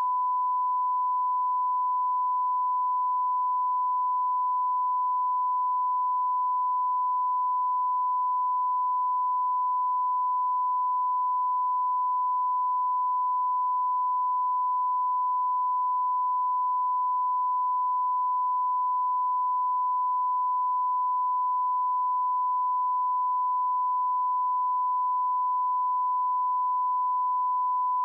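Bars-and-tone line-up signal: a steady 1 kHz sine reference tone, one pure pitch held unchanged.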